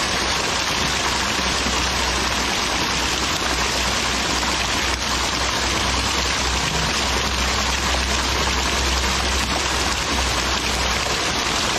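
Water gushing from four pipes and splashing onto a small homemade water turbine and the muddy ground: a steady, even rushing with a low rumble underneath.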